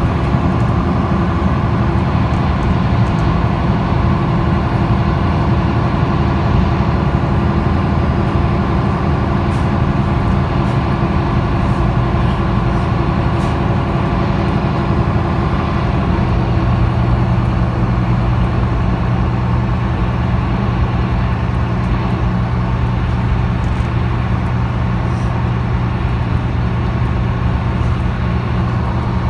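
MAN D2066 six-cylinder diesel of a MAN NL323F bus with ZF EcoLife automatic gearbox, running under way, heard from inside the passenger cabin with road rumble. About halfway through, the engine note changes and settles into a steadier hum.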